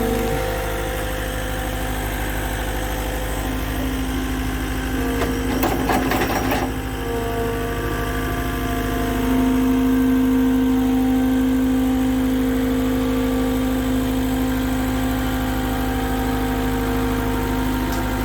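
Engine of a machine carrying a post-hole auger attachment running steadily with a steady whine. There is a brief rattle about six seconds in, and the whine grows louder a few seconds later.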